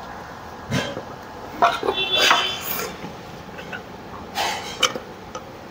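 Steel transfer case parts clinking and knocking as they are handled and fitted together: a few sharp clicks, a brief run of metal clatter with a short ring about two seconds in, then more knocks near the end.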